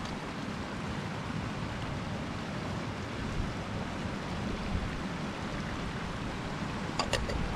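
Steady rushing wind, with a few light clicks near the end.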